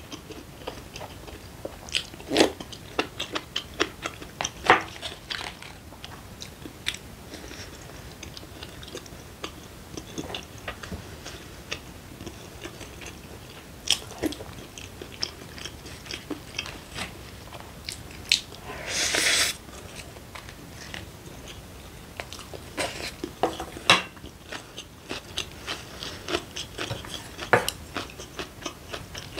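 Close-miked chewing and biting of a person eating rice and fermented soybean stew, with many short wet clicks and smacks of the mouth. About two-thirds of the way through comes one longer breathy noise lasting about a second.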